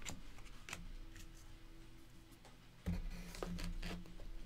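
Quiet handling sounds: scattered light clicks and taps, then a dull thump with a brief low rumble about three seconds in.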